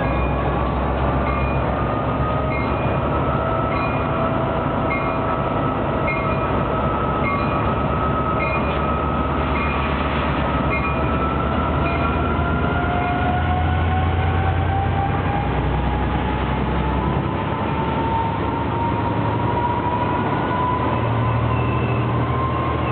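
Metrolink F59PH diesel locomotive's EMD 710 engine revving hard as it pulls a train away, its whine sagging then climbing steadily in pitch. The locomotive bell rings at a steady beat through the first half, and the bi-level coaches roll past.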